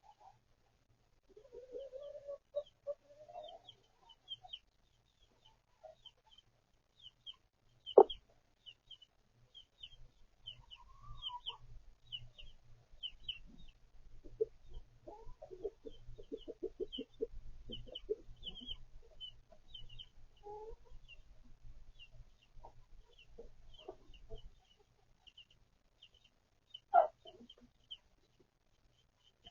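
Backyard hens clucking, with chicks peeping in a steady stream of short high chirps. A run of rapid low clucks falls in the middle, and there is a single sharp knock about eight seconds in.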